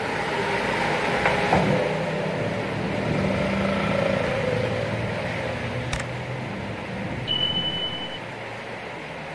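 Heavy rain on a flooded street as a light truck and then a motorcycle drive through the water, their engines and tyre splash rising and fading over the rain. Near the end a single sharp click, then a short steady high beep lasting about a second.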